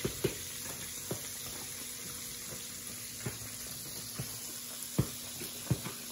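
A spoon stirring thick cornbread batter in a plastic mixing bowl, with a few light taps and scrapes against the bowl, over a steady background hiss.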